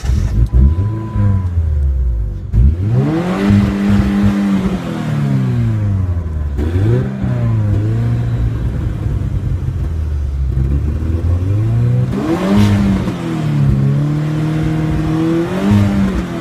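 Ford Ranger pickup's engine revving up and falling back several times, its pitch climbing and dropping with each rev.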